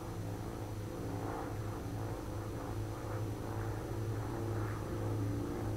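Propeller aircraft engines droning steadily, slowly growing louder as the plane approaches.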